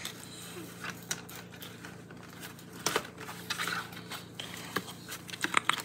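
Faint, scattered crinkles and clicks of plastic snack packaging being handled and items shifted in a cardboard box.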